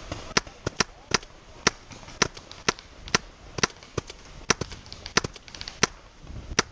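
Paintball markers firing: a run of sharp shots at uneven spacing, about two or three a second.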